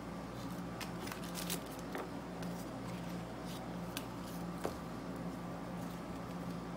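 Scattered small clicks and light rustles of hard plastic gimbal accessories being handled, over a steady low hum.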